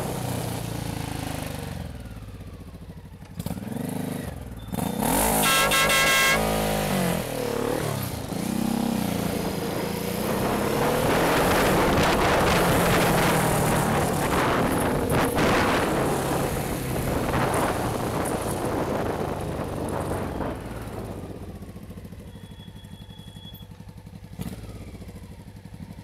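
Motorcycle engine running while riding in traffic, its note rising and falling through the gears, with wind rush at speed. A horn sounds for about a second around six seconds in, and the engine settles lower and quieter near the end as the bike slows to a stop.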